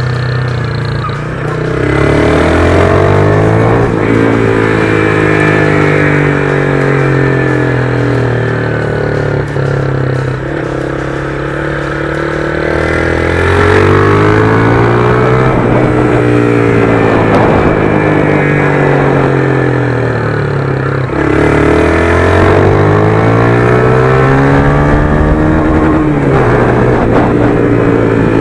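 Honda CG 150 Start motorcycle's single-cylinder engine running through a Fortuna "estraladinho" exhaust while being ridden, its revs rising and falling several times as it accelerates, shifts and slows.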